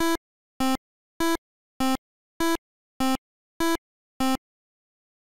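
8-bit, video-game-style electronic blips: eight short tones evenly spaced about two-thirds of a second apart, stopping a little after four seconds in. They serve as a footstep sound effect for a walking animation.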